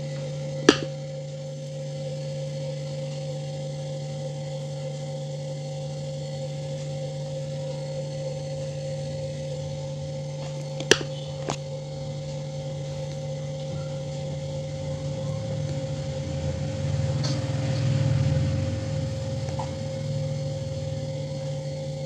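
Steady electrical hum from a Toshiba Glacio two-door refrigerator running with its defrost timer energised and vibrating. Sharp clicks come about a second in and twice around the middle, and a low rumble swells and fades near the end.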